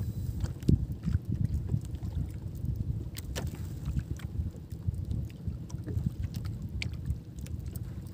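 Water lapping and slapping against the hull of a small outrigger boat as it moves over light chop, with a low, uneven rumble and scattered small splashes.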